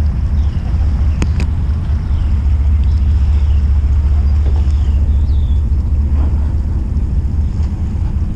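Steady low rumble of a fishing boat underway, its motor running with wind on the microphone.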